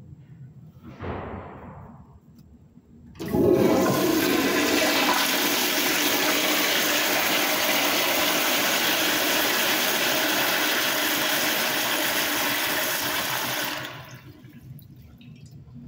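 Commercial toilet with a chrome flushometer valve, apparently a Kohler Kingston, flushing. About three seconds in, a sudden loud rush of water swirls down the bowl. It runs steadily for about ten seconds, then cuts off.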